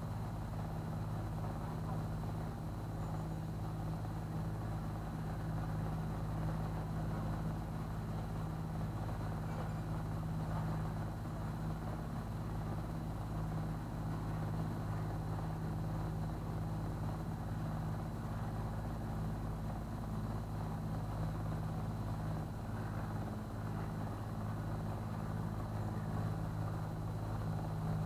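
Motor cruiser's engine running steadily at slow canal cruising speed: a constant low drone that does not change in pitch or level.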